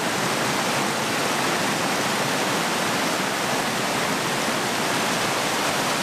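Borer's Falls, a 15-metre ribbon waterfall, heard from its brink: a steady, even rush of water pouring over the edge.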